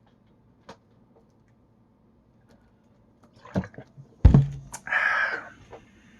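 A few light clicks, then a sharp thunk about four seconds in, followed by a short breathy hiss.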